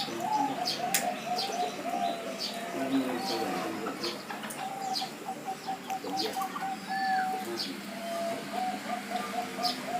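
Zebra doves (perkutut) cooing: repeated runs of short coo notes, several birds overlapping, with brief high chirps from small birds mixed in.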